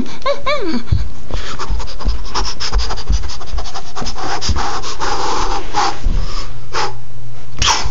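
Rubbing and scratching of a handheld phone's microphone as it is handled and carried, full of irregular rustles and clicks. It opens with a brief high, sliding sing-song voice that dies out in the first second.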